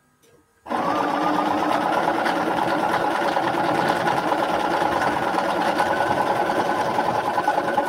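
Bernina electric sewing machine stitching a seam through pieced quilt fabric, running at a steady speed. It starts under a second in and stops abruptly at the end of the seam.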